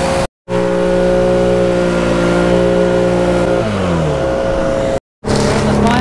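An engine running steadily at high revs, then slowing with a falling pitch a little past halfway. The sound drops out to silence briefly twice, near the start and near the end.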